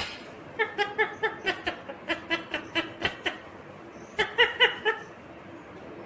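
Indian ringneck parakeet giving quick runs of short laugh-like syllables, about six a second, in two bursts, after a sharp click at the very start.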